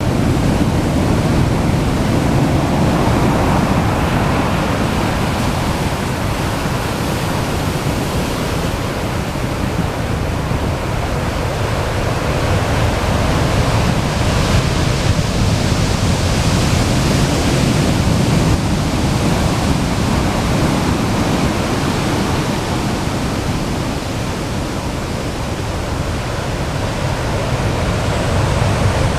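Heavy typhoon-driven surf breaking without pause on the shore, with strong wind. The dense roar swells and eases over several seconds, brightest about halfway through.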